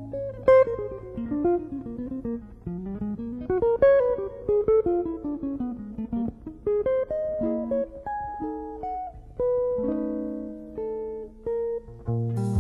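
Background music: a plucked guitar playing quick runs of notes that rise and fall.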